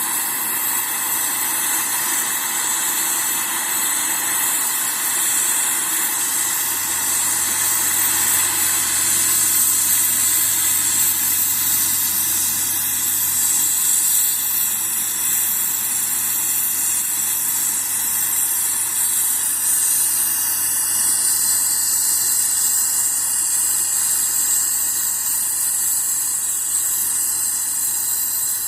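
Forge air blower running steadily, blowing air into the coals: a constant loud rushing hiss, with a low hum joining about six seconds in.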